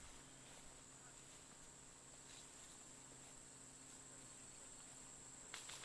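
Near silence outdoors, with a faint, steady, high-pitched insect drone. A few quick clicks come right at the end.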